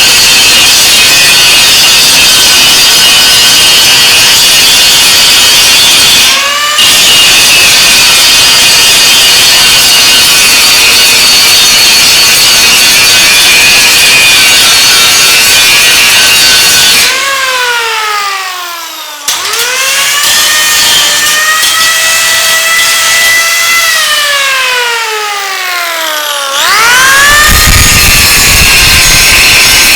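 Angle grinder grinding loudly, with a brief break about six seconds in. Past the middle the disc comes off the work and the motor whine falls as it winds down. The whine rises again, falls, then climbs back up as heavy grinding resumes near the end.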